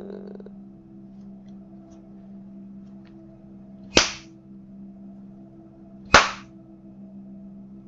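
Two sharp hand claps a little over two seconds apart, the ritual kashiwade clapping that closes a Shinto purification prayer, over a faint steady drone.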